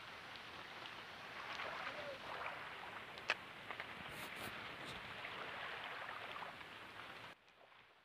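Steady soft hiss of water at the shore's edge, with a few faint clicks and ticks, one sharper tick about three seconds in; it cuts off abruptly near the end.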